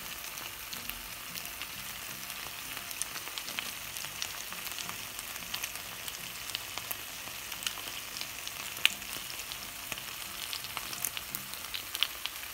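Chicken wings frying in oil in a pan: a steady sizzle scattered with crackles and spattering pops, one pop much louder about two-thirds of the way through.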